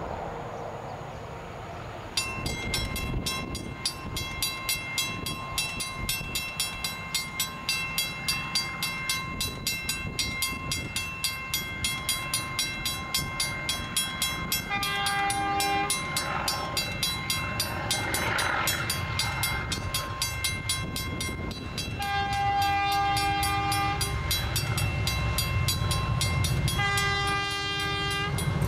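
Level crossing bell starts about two seconds in and keeps striking in a fast, even rhythm. Near the middle, about three-quarters through and near the end, a diesel locomotive horn sounds three blasts, the second the longest. A low rumble from the approaching train grows under it toward the end.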